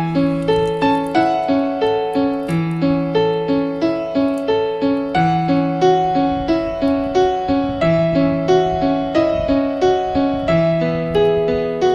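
Background piano music: a steady run of notes, about three a second, over a low bass note that is struck again every two to three seconds.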